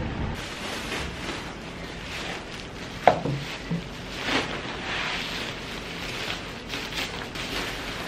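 Woven plastic shipping sack rustling and crinkling as it is handled and opened on a table, with a sharp knock about three seconds in and a few softer knocks after.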